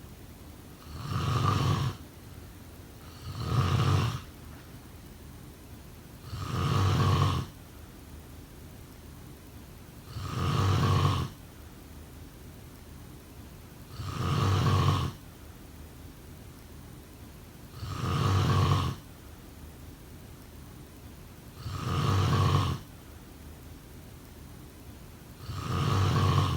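A person snoring: eight snores, each about a second long, coming regularly about every four seconds, with a steady faint hiss in the pauses between them.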